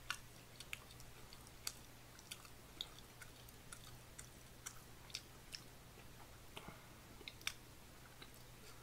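Near silence: faint, irregularly spaced small clicks, about twenty of them, over a steady low hum.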